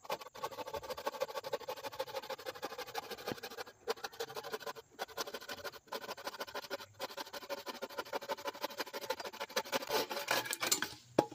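Bow saw cutting through a wooden board held on a sawhorse: fast, rhythmic rasping strokes with a faint ringing tone underneath and a few very short pauses. A sharp knock comes near the end.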